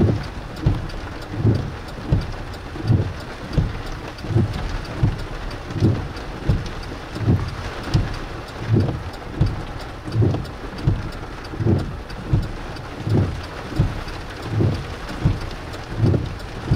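Heavy rain on a car with the windshield wipers running: a steady hiss of rain under regular low wiper thumps, about three every two seconds.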